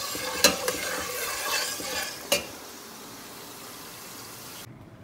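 A metal spoon stirring sliced onions frying in oil in a steel pot, with steady sizzling. The spoon clinks sharply against the pot twice, about half a second in and a little after two seconds. The sizzle cuts off abruptly shortly before the end.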